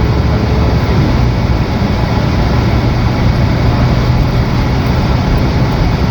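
Steady engine and road noise inside a moving city bus, with a constant low hum and a whine that drops in pitch about a second in.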